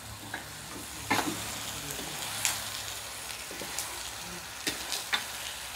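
Pork leg pieces sizzling as they are stir-fried in a wok in caramelised sugar sauce, with a spatula scraping and knocking against the wok several times.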